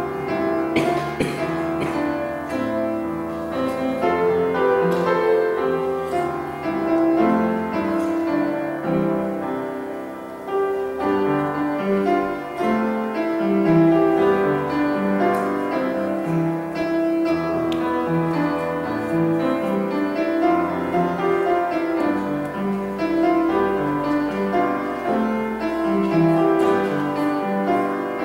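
Solo piano music, chords under a melody, with no singing.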